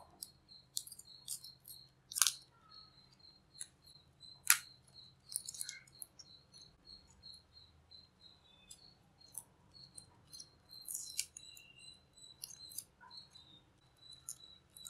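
Plastic tape being peeled by hand off the winding of a small step-down transformer: irregular crackles and sharp ticks, the loudest about two seconds in and again about four and a half seconds in.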